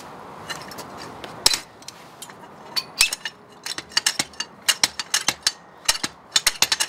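Hi-Lift jack being worked by its handle: the climbing pins and running gear clicking and clanking on the steel standard in quick, irregular metallic clicks, with one loud click about a second and a half in and a dense run of clicks in the second half. The running gear sticks instead of sliding freely, which a speaker puts down to likely corrosion and old lubrication gumming up the climbing pins.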